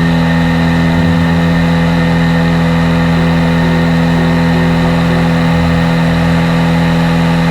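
Cessna 182's piston engine and propeller running at full takeoff power, a loud, steady drone that cuts off suddenly at the end.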